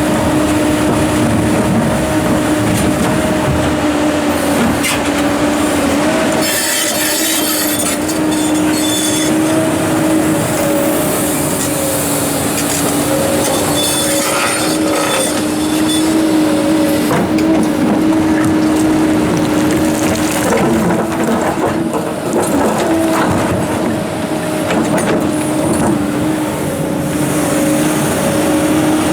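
Komatsu PC290-11 hydraulic excavator working: diesel engine and hydraulics running steadily with a constant whine at one pitch, with occasional knocks.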